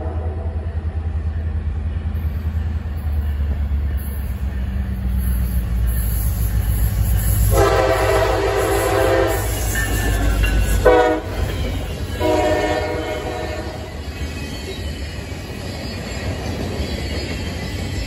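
CSX freight train passing at speed. The diesel locomotive's rumble builds as it nears, and its horn sounds a long blast, a short one as the lead unit goes by, and another long one: the end of the grade-crossing signal. Then boxcars roll past with steady wheel-on-rail noise.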